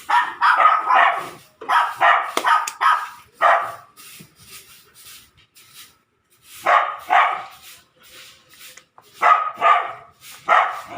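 A dog barking repeatedly, in runs of quick barks with pauses between them, the longest pause a little after the middle.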